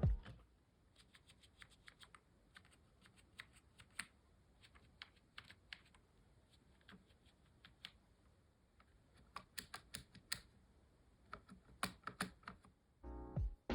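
Keys of a 1998 Bondi blue Apple keyboard being typed on: faint, irregular clicks, with quicker runs of clicking around ten and twelve seconds in. Music comes in near the end.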